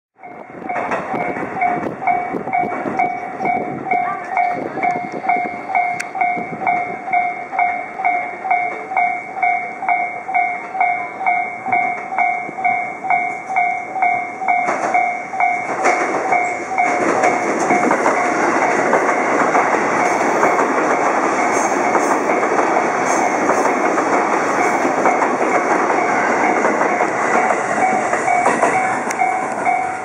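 Japanese level-crossing warning bell ringing in a steady, evenly repeated two-tone ding. From about halfway, an E259 Narita Express electric train passes close by, its running noise growing loud under the bell.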